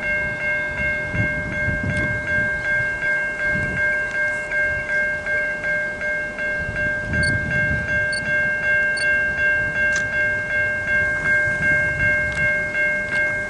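Level crossing warning bell ringing continuously in an even, repeating pulse, over the low rumble of an approaching V/Line N class diesel locomotive.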